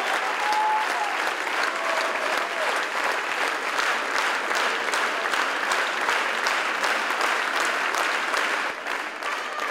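Theatre audience applauding a curtain call: a dense, steady clatter of many hands clapping, thinning slightly near the end.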